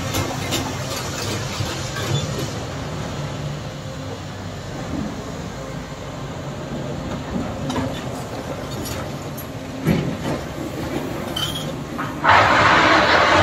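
Caterpillar tracked excavator with a tiltrotator running steadily as its upper structure swings round and the boom lifts, with scattered metallic clinks and knocks. Near the end a loud rushing noise starts and lasts more than a second.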